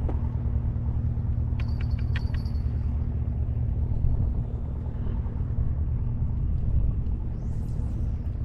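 Strong wind rumbling steadily on the microphone, with a faint steady hum beneath it. About two seconds in come a few sharp clicks with a brief high ringing.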